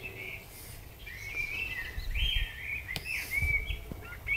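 Songbirds singing in garden trees: a quick run of short chirping and warbling notes that starts about a second in, with some low rumble on the microphone.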